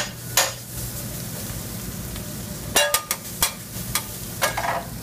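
Meat and tortillas sizzling on a steel flat-top griddle over a steady low hum, with a few sharp metallic clacks of a metal spatula chopping and scraping against the griddle, several of them bunched around three seconds in.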